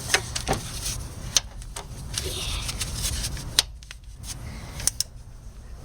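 Scattered sharp clicks and taps, about seven or eight over several seconds, from brake parts and hand tools being handled during a front brake job, over a low steady rumble.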